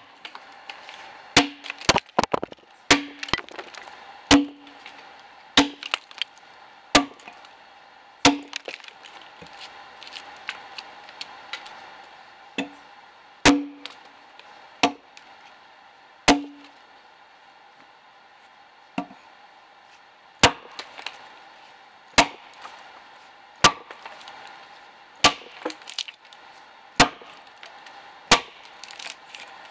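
Axe chopping into the side of a dead ash log while hewing it: sharp strikes every second or so, many with a brief hollow ring, and a pause of a couple of seconds a little past halfway.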